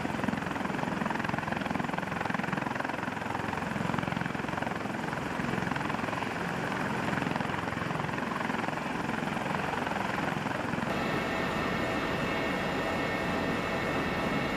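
Helicopter running: a loud, steady, dense rotor and engine noise. About eleven seconds in, it cuts abruptly to another helicopter recording with a steady high whine over the noise.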